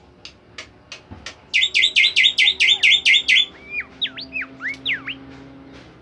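A caged bimoli songbird singing: a fast run of about ten loud, ringing notes, about five a second, then a few whistled notes that sweep up and down before it stops about a second before the end.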